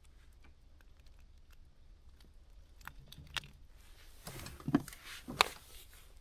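Close handling noise: scattered small clicks and rustles, then a few sharp knocks, the loudest two in the second half.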